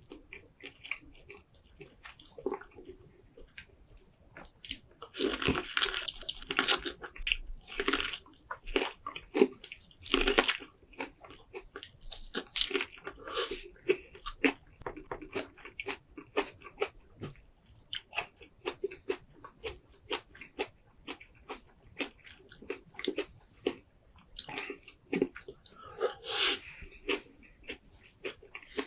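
Close-miked eating of a seafood boil: wet chewing and biting, with runs of crunchy snaps and crackles that are loudest several times, as when shells or corn are bitten into.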